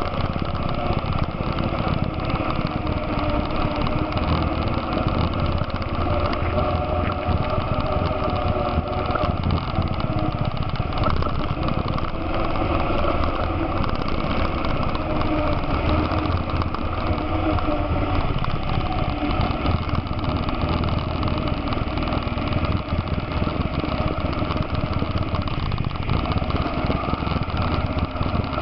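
ATV engine running steadily while riding at a moderate pace, its pitch wavering slightly with small throttle changes.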